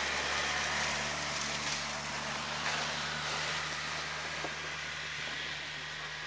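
Polaris Ranger 6x6 utility vehicle's engine running steadily as it pulls away towing the hood sled, growing gradually fainter, over a steady hiss.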